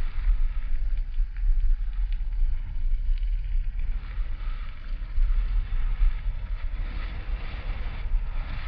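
Wind buffeting the microphone of a handlebar-mounted GoPro Hero 4 on a moving bicycle: a gusty low rumble that keeps rising and falling. Under it is the hiss of the tyres on a rough, gravelly road.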